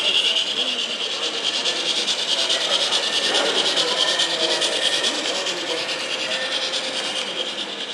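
O-scale model train running along the layout track: a fast, even ticking of its wheels over the rails with a steady hiss, over faint background chatter.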